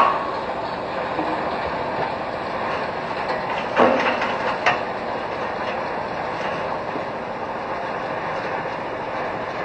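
Steady running of heavy machinery at a bulk feed hopper, with a loud knock at the start and two more around four and four and a half seconds in.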